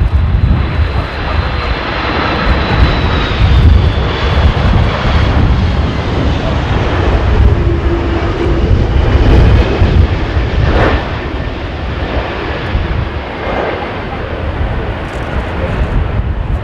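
Jet airliner's engines on landing approach in a strong crosswind, a high whine sliding slowly down in pitch over the first few seconds. Heavy wind buffets the microphone throughout.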